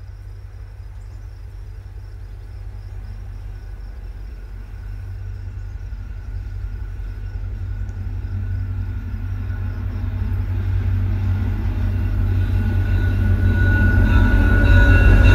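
VIA Rail GE P42DC diesel locomotive and its train approaching along the track. The low rumble grows steadily louder as it nears, and a high squeal joins in near the end as it pulls into the station.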